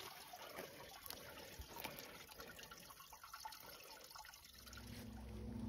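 Faint trickle of shallow creek water. A low steady hum comes in and grows louder near the end.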